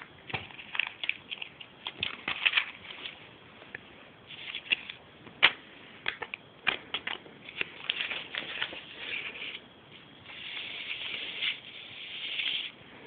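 Paper crinkling and rustling in short irregular crackles, with a longer, steadier rustle near the end.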